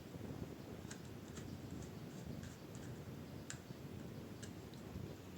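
A few faint, sharp clicks at irregular intervals from a small screwdriver driving screws that fasten the new SSD's retaining bracket inside a laptop.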